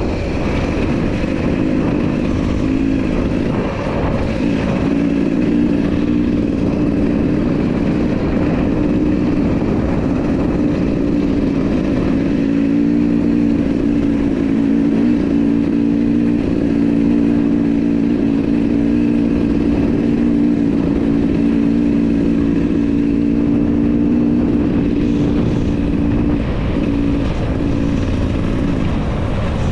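Enduro motorcycle engine running at a steady pace while riding. It holds an even note from a few seconds in and eases off a few seconds before the end.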